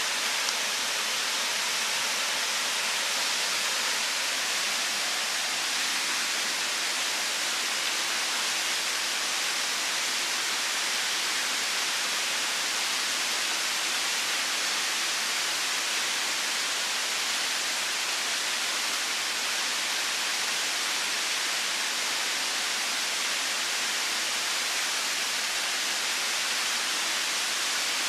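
Waterfall rushing steadily, an even hiss of falling water with little low rumble.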